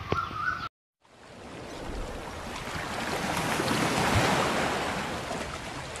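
Ocean surf breaking on a beach: an even wash of noise that starts about a second in, swells to its loudest around four seconds and then eases off.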